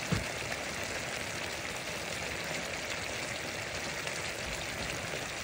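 Jackfruit chunks and sardines boiling in a pan of broth: a steady bubbling simmer. A single light tap comes just at the start.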